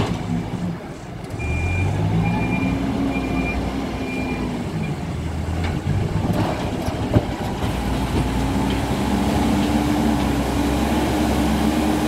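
Hidromek 102B backhoe loader's diesel engine running, its speed rising and falling twice. Its reversing alarm beeps five times in the first five seconds, the sign that the machine is backing up, and there is a single sharp click about seven seconds in.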